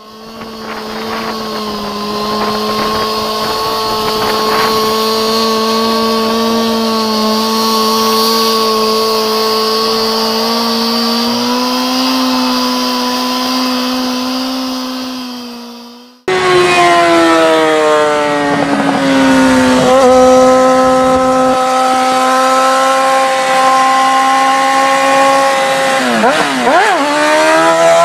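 Sport motorcycle engine held at high revs during a burnout, its pitch steady and edging up, over the hiss of the spinning rear tyre. It fades out about 16 seconds in, and a second sport bike's engine cuts in, running hard with its pitch sagging, stepping down and wavering during a wheelie, then rising again near the end.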